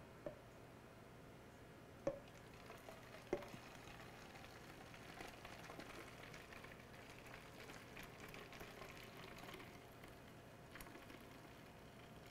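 Faint pouring of liquid from a glass measuring cup into a plastic spray bottle. There are a few light knocks in the first few seconds, then a soft trickle.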